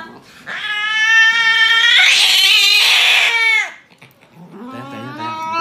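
Domestic cat yowling in distress while restrained for an injection in its foreleg. One long drawn-out yowl that turns harsh in the middle and falls away at its end, then a second yowl rising about a second later.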